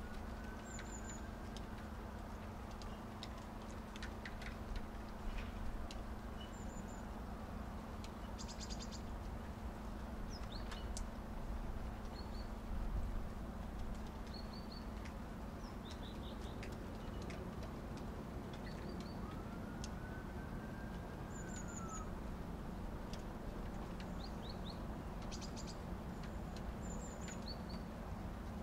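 Small birds chirping in short, high calls, scattered through a steady hiss and low hum with light ticks. A faint rising-and-falling tone is heard twice, once just after the start and once about twenty seconds in.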